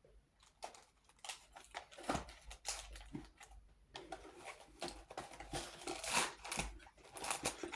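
Irregular crinkling, rustling and light taps of candy packaging being handled.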